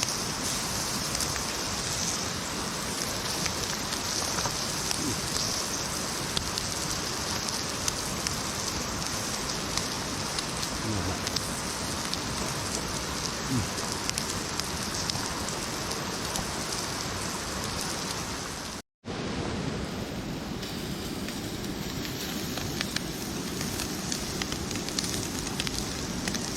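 Meat sizzling on a wood-fired grill: a steady, dense sizzle full of small pops and crackles. It cuts out abruptly for a moment about nineteen seconds in, then goes on.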